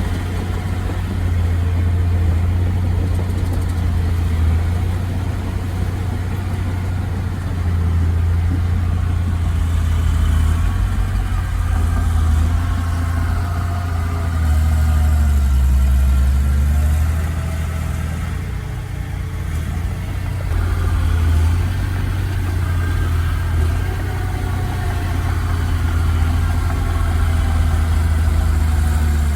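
Heavy diesel engine of land-clearing machinery running steadily, its pitch and loudness rising and falling a few times as the load changes.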